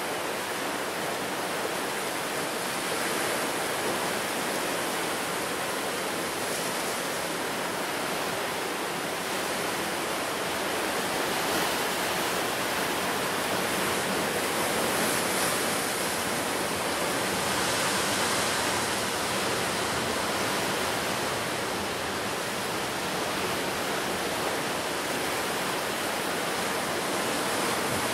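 Ocean surf, with waves breaking and washing on the shore in a steady rushing hiss that swells slightly a few times.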